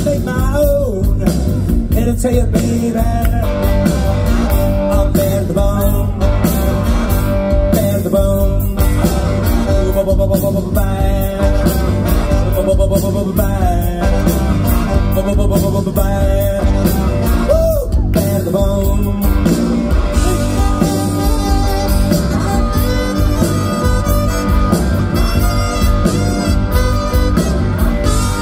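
Live blues-rock band playing an instrumental passage: electric guitar, bass and drums, with a lead line that bends in pitch over the steady groove.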